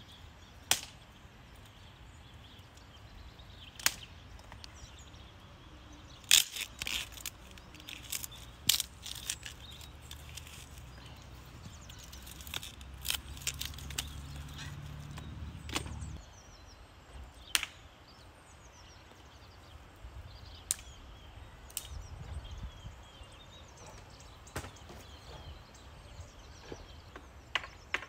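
Scattered sharp knocks and cracks of hand work, a few seconds apart with a denser cluster in the first half, over a low steady rumble that cuts off suddenly about halfway through.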